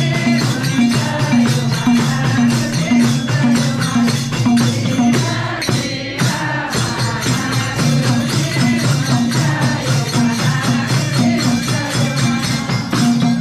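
Devotional bhajan music in an instrumental stretch: fast, even jingling percussion over steady low repeated notes, briefly thinning about six seconds in.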